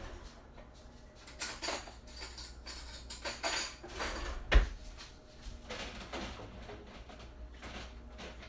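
Kitchen clatter of dishes and cutlery: scattered clinks and knocks with a few short scrapes, the sharpest knock about four and a half seconds in.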